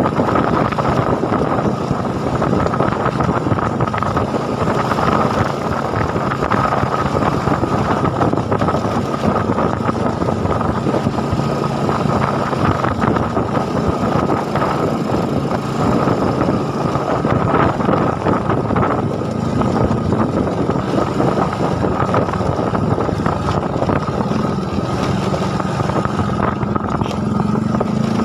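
Small motorcycle engine running steadily while riding, with wind rumble on the microphone; the engine note rises near the end.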